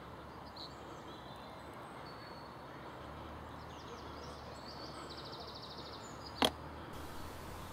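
Faint outdoor ambience with a steady low hiss and distant birds chirping, including a quick trill near the middle. A single sharp click about six and a half seconds in.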